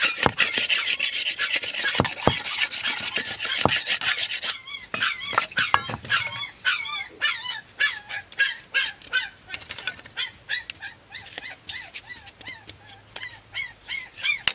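A knife blade scraping and shaving green bamboo into thin strips. A dense rasping runs for the first four seconds or so, then gives way to quick, regular strokes, about three a second, each with a squeaky, wavering pitch.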